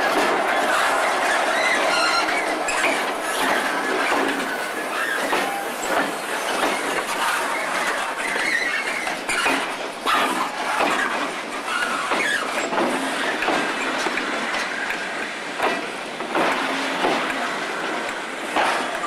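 Diesel-hauled freight train passing close by: the locomotives, an EWS Class 66 followed by a Class 58, running past in the first half, then empty flat wagons rolling by with a clickety-clack over rail joints and some wheel squeal.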